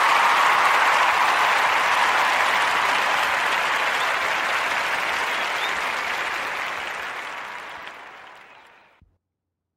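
Recorded crowd applause played as a segment-break sound effect: a steady wash of clapping that fades out over the last two seconds.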